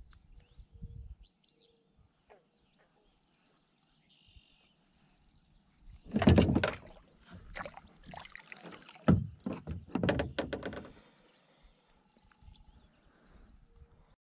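Loud knocks and clatter of gear being handled against a plastic kayak's hull, in two clusters about six and nine seconds in. Faint bird chirps and whistles come before them.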